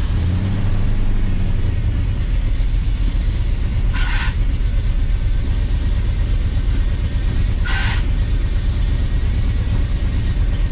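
1982 Ford F-150's engine idling steadily just after starting, running the newly installed power steering pump while the system is bled of air. Twice, about four seconds apart, a short higher-pitched burst sounds over the idle.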